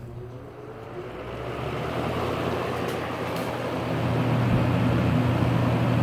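1980s Lasko Galaxy box fan with a plastic-housed three-speed motor starting up on high: a steady electrical hum under a rush of air that grows louder over the first few seconds as the blades come up to speed, then holds steady.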